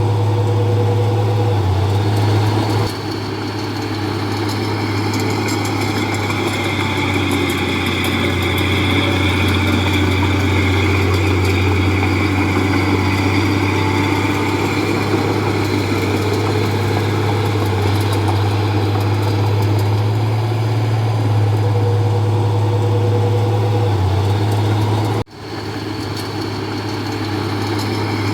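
Diesel engine of a Komatsu D31P bulldozer running steadily at a low, even speed. The sound cuts out abruptly for a moment near the end, then comes back.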